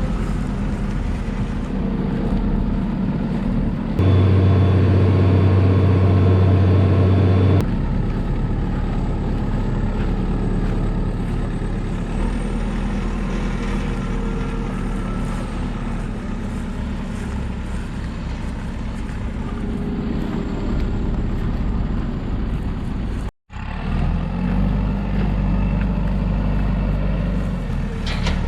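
Large farm machinery diesel engines running steadily under load, in several cut-together shots. About four seconds in, a louder, deeper drone plays for three or four seconds. A brief gap comes near the end.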